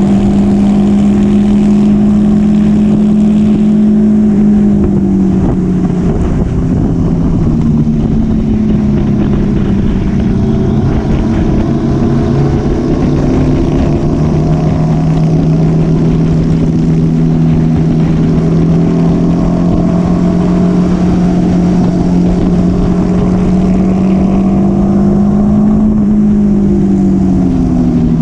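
Motorcycle engine running at a steady cruising pace. Its pitch drops about five seconds in, holds level, then rises and falls again near the end.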